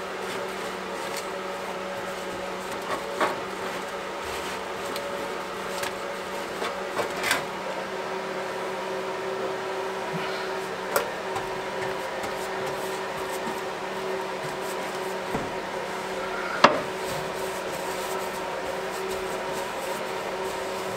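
Paintbrush work on a car's bare sheet-metal quarter panel: faint brushing, with a few light taps and knocks from the brush and jar, the sharpest about two-thirds of the way in. A steady electrical hum runs underneath.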